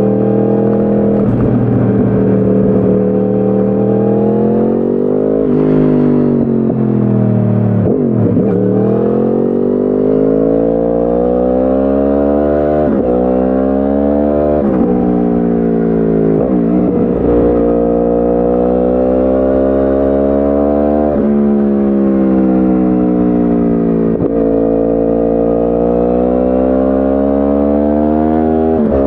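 2010 Yamaha R1 crossplane inline-four through a de-catted Akrapovic exhaust, heard onboard under acceleration. Its pitch climbs through the revs and drops abruptly at each upshift, about half a dozen times. Around eight seconds in the revs fall low before climbing again.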